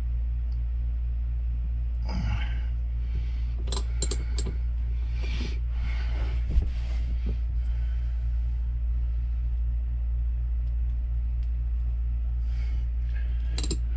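Small metal wrenches clinking and scraping on a rusted toilet flange and its seized screws: a quick cluster of sharp clicks about four seconds in, scraping and handling noise around them, and another sharp click near the end. A steady low hum runs underneath.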